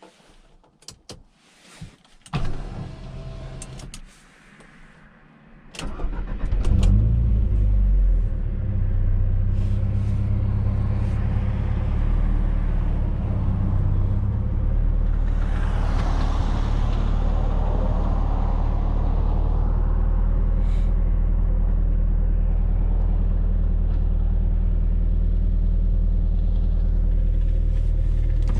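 A few clicks, then the 1995 Fiat Coupe 2.0 16V Turbo's four-cylinder engine starts about six seconds in, flares briefly and settles into a steady idle.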